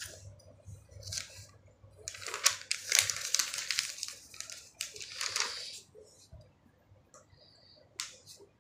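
A notebook's paper page being turned by hand: rustling and crinkling in bursts, loudest in the middle, with a short sharp rustle near the end.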